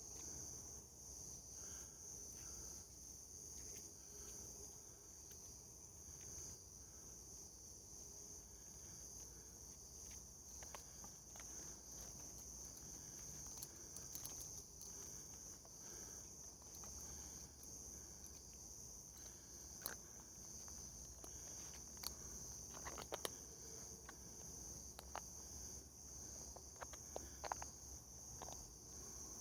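Steady high-pitched insect chorus, with scattered small clicks and rustles in the second half.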